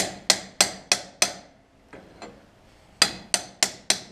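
Hammer blows on a steel drift driving a new wheel bearing onto an Ursus tractor's front stub axle: sharp metal-on-metal strikes, about three a second, five in a row, a pause, then four more.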